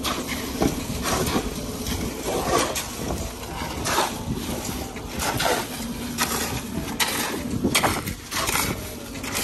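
Shovels and hoes scraping and slapping through wet concrete mix spread on the ground, in repeated irregular strokes about one or two a second.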